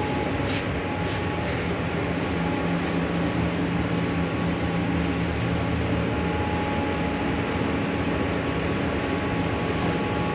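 Glue-coating roll laminating machine running, a steady mechanical hum with a few faint ticks.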